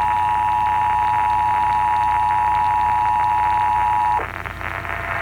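Emergency Alert System attention signal heard over AM radio: a steady two-tone alarm that cuts off suddenly about four seconds in, leaving faint radio hiss.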